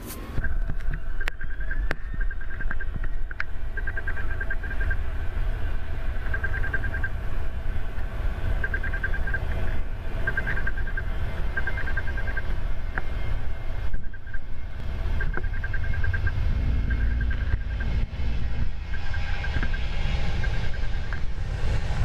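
Boeing 737-800's CFM56 jet engines at takeoff thrust on the runway: a steady low rumble that grows stronger as the airliner accelerates closer. A high chirping repeats in short bursts over it.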